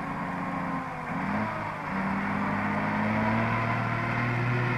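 Scania-Vabis LA82 six-wheel-drive army truck's engine running under load, its note dipping about a second in and then climbing slowly and getting louder as it pulls in a low terrain gear.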